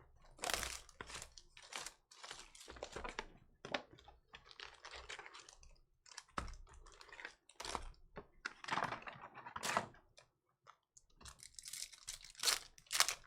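Foil trading-card pack wrappers being torn open and crinkled, with the cards inside slid and flicked by hand, in irregular crackling spurts with short pauses.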